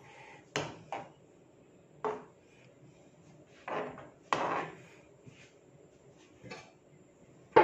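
Metal spoon scraping and knocking against a non-stick frying pan while stirring a thick, creamy curry sauce: about seven separate short strokes with quiet gaps between them.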